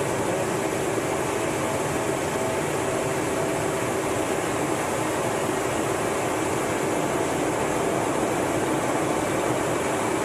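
Steady cockpit noise of an F/A-18 Hornet in flight, heard inside the canopy: an even rush of air and engine noise with a few faint steady whines under it.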